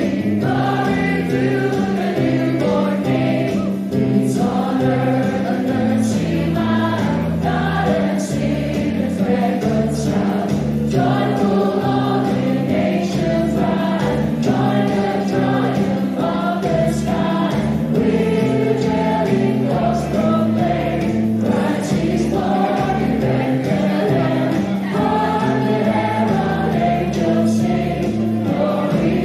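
A choir singing a Christmas carol, with held notes and no break.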